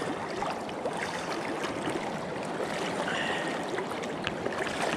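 River current flowing and gurgling close around a wading angler, with small splashes and trickles throughout.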